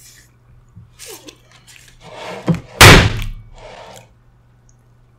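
Mouth noises of a man biting into and chewing a burger, then a single loud thud about three seconds in, the loudest sound.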